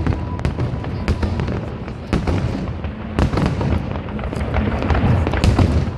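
Fireworks going off: a quick, irregular run of bangs and crackles over a continuous low rumble.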